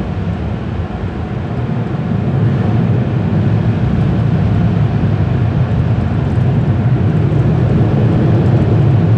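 Automatic car wash air-dryer blowers running overhead, heard from inside the car's cabin as a steady rush of air that gets louder about two seconds in.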